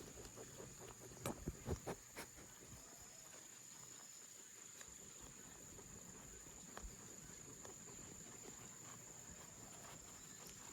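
An insect calling in a steady high-pitched trill, faint against outdoor quiet, with a few sharp knocks between one and two seconds in.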